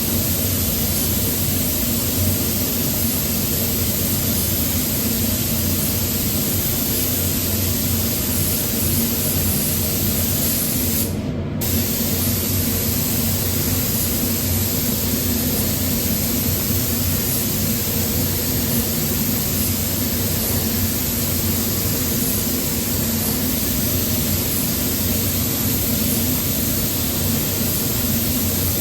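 Paint spray gun hissing steadily with compressed air. The hiss stops briefly about eleven seconds in, then resumes. Under it runs a steady machine hum.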